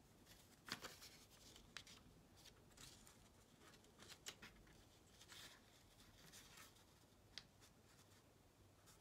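Near silence with faint, scattered rustles and light ticks of a paper strip and blue painter's tape being handled and pressed onto a painted globe.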